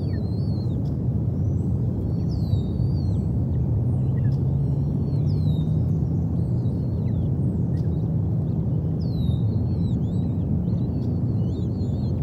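Short high bird chirps, each slurring downward, repeated every second or two over a steady low rushing noise of rain and wet weather.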